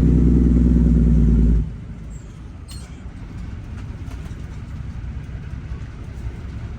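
International 9900's Cummins diesel engine, heard from the cab. A loud, steady low drone cuts off suddenly about a second and a half in, leaving the engine's steady low rumble.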